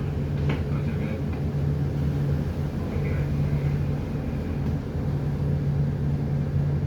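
Ship's engine running steadily: a constant low hum with a steady tone.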